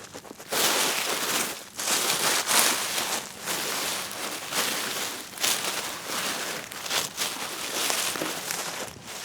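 Dry leaves on a forest floor being stirred and pushed about, a dense crackling rustle that swells and eases in uneven sweeps.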